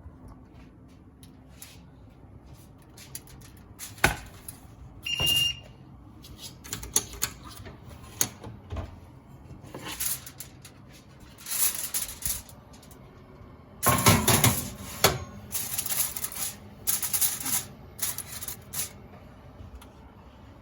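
Kitchen handling sounds: irregular clicks, knocks and short scrapes of utensils and cookware, busiest in the second half, with a brief high electronic beep about five seconds in.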